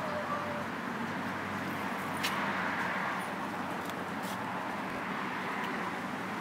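Steady outdoor background noise of road traffic, with a few faint clicks about two and four seconds in.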